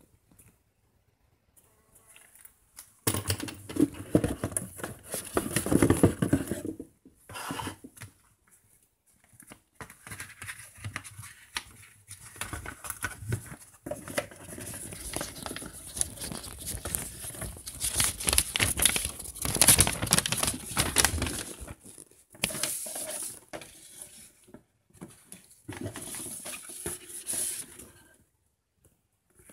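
Packaging being handled and torn open while a dropper post is unwrapped: irregular crinkling, rustling and tearing in several stretches with short pauses between them.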